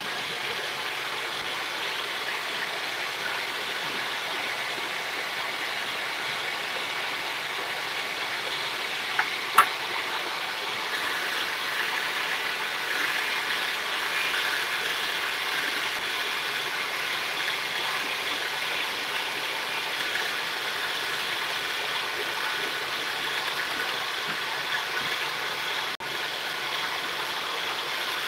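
A machine running steadily with a constant whir, with two sharp clicks about nine and a half seconds in.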